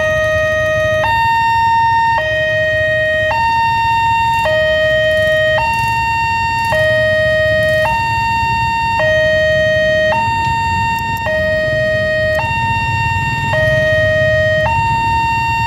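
Wantech railway level-crossing alarm sounding its two-tone warning, switching steadily between a lower and a higher tone about every second, the signal that a train is approaching. Motorcycle engines idle underneath as a low rumble.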